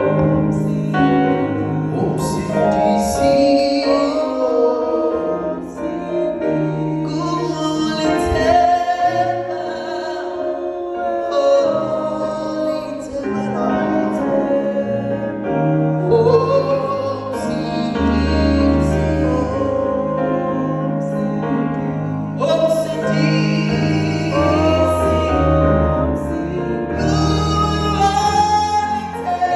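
Music with singing: held, wavering vocal lines over steady bass notes.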